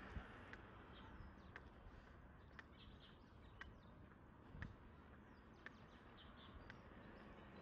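Near silence: faint outdoor background hiss with small high chirps, like birds, and light ticks about once a second.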